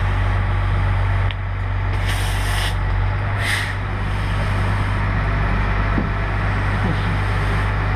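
A heavy engine running steadily with a low rumble, with two short hisses of compressed air about two and three and a half seconds in.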